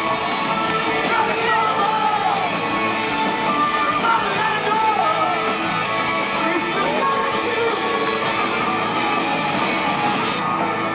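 Live rock band playing: electric guitars, bass and drums with a singer, heard from the crowd.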